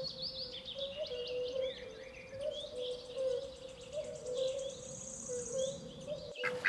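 Songbirds chirping, with many short high chirps over a steady, slightly wavering low hum. Both cut off suddenly near the end.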